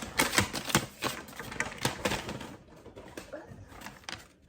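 Small hard plastic toy pieces clicking and tapping as they are handled: a quick run of sharp clicks in the first two seconds, then fewer, quieter taps.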